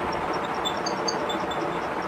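Steady background noise, an even rumble and hiss, with a few faint short high chirps over it.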